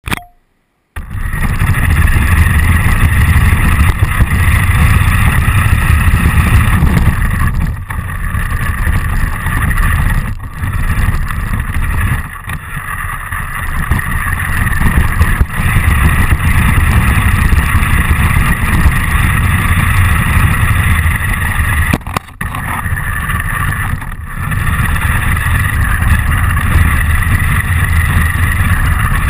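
RC car running with a GoPro mounted on it, starting about a second in. A steady motor whine sits over a loud rumble of vibration and wind, and it eases off briefly several times.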